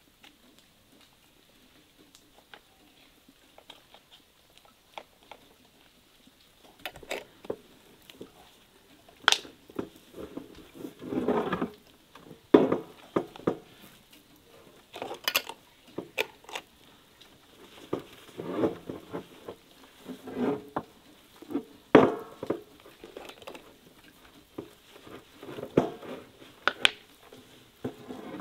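Irregular taps, clinks and scrapes of kitchenware being handled, with a few sharper knocks.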